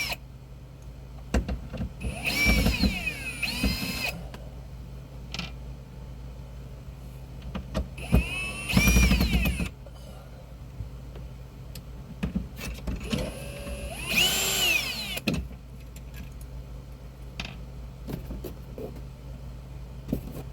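Electric screwdriver backing screws out of an interior panel in three short runs, about two, eight and fourteen seconds in, the motor whine rising as it spins up and falling as it winds down. Light clicks and handling knocks fall between the runs.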